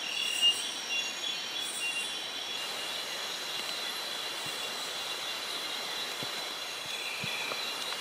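Nocturnal rainforest insect chorus: several steady, high-pitched buzzing and trilling tones that hold throughout, with a few short chirps in the first two seconds. A few faint taps of footsteps on the trail come in the second half.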